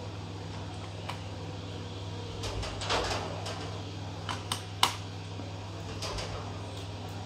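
Scattered small clicks and taps of hand work on a laptop as its screws are refitted with a screwdriver, over a steady low hum. The clicks bunch around three seconds in and again near five seconds, where the sharpest one falls.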